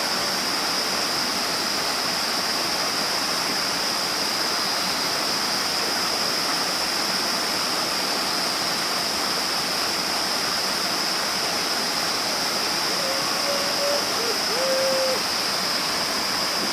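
Waterfall rushing steadily, an even wash of falling water, with a steady high-pitched whine over it.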